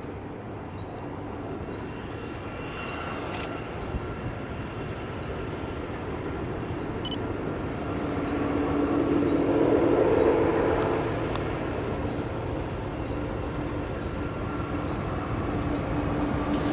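Diesel locomotives of a freight train running, growing louder to a peak about ten seconds in and then holding, with a steady engine hum underneath.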